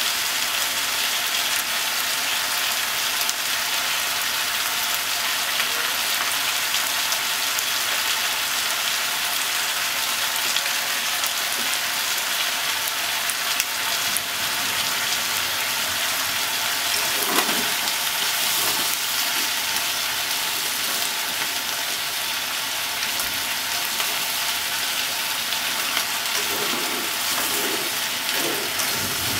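Pork, potatoes, onion and carrot frying in a pot with a steady sizzle. Near the end the ingredients are turned over with chopsticks, adding short rustling scrapes.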